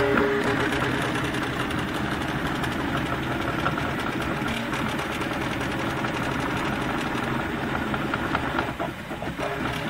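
RepRap Mendelmax 3D printer running steadily, its stepper motors buzzing and whining as the print head moves back and forth laying down the first layers of a print.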